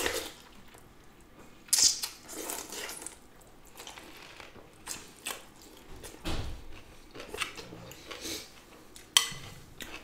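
Eating sounds: pho rice noodles slurped and chewed, with a metal fork clinking now and then against a glass bowl in short, scattered bursts.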